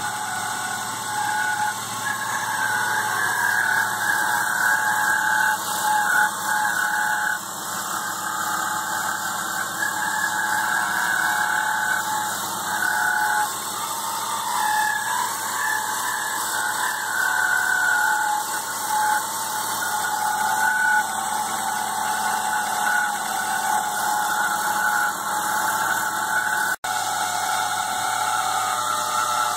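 BMW E36 M3 straight-six engine running with a steady whine from the accessory belt drive, its pitch wavering slightly. The owner traced the whine to a rough main belt tensioner pulley, not the alternator.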